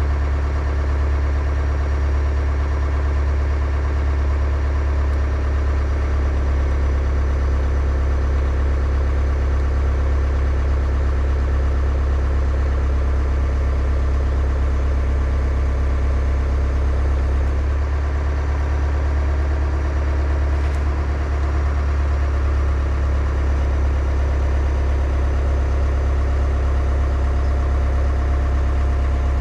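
Skid steer engine running steadily at idle, a loud even hum.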